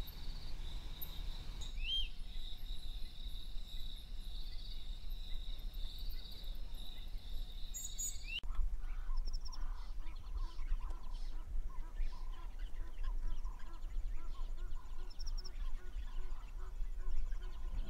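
Bush ambience: a steady high insect buzz with a few short bird chirps, which cuts off suddenly about eight seconds in and gives way to scattered bird calls over a low rumble.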